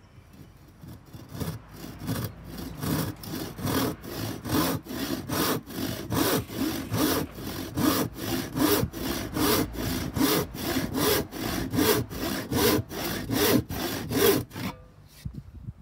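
Hand panel saw cutting through a board, a long run of quick, even back-and-forth strokes that starts about a second in and stops just before the end.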